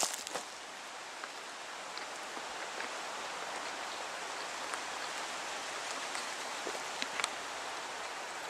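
Wind blowing through the trees and over the ground: a steady hiss with no pitch, broken by a few faint clicks about seven seconds in.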